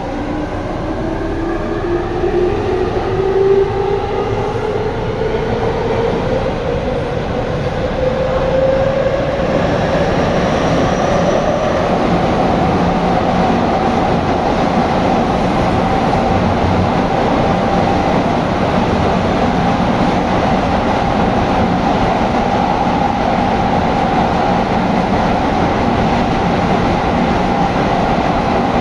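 Tobu 9050 series electric train accelerating through a subway tunnel: the inverter-driven traction motors whine, rising in pitch over about the first ten seconds, then the train runs at speed with a steady whine and rolling noise.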